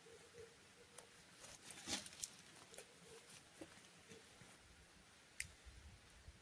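Near silence with a few faint, scattered clicks and light taps; the loudest comes about two seconds in.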